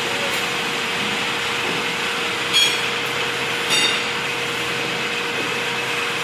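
CNC machine running with a steady hum and rushing noise, with two brief high-pitched metallic squeals about a second apart near the middle.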